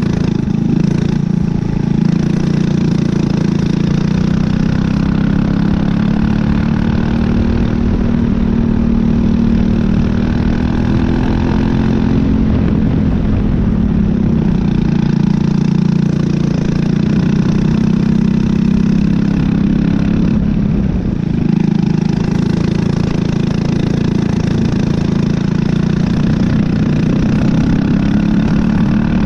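Briggs & Stratton LO206 single-cylinder four-stroke kart engine recorded on board at close range, its pitch climbing as it pulls down the straights and dropping back for the corners, twice in the middle and again climbing near the end.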